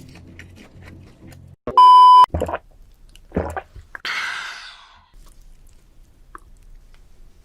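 A loud electronic beep lasting about half a second, about two seconds in. It is followed by two short crunchy chewing sounds and a brief hiss that fades away.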